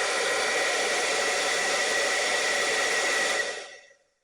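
Cloud 9 Airshot hairdryer running: a steady rush of air with a high whine. It is switched off about three and a half seconds in and winds down. It is being test-run after a replacement thermal fuse was fitted.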